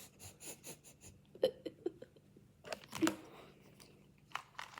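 Plastic 2x2 speed cube being turned and handled: irregular plastic clicks and clacks, the loudest about one and a half and three seconds in.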